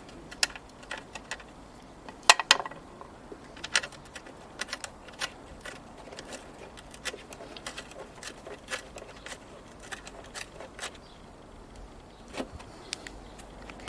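Irregular metallic clicks and clinks of nuts, bolts and hand tools being handled and fitted, with a louder clatter about two seconds in.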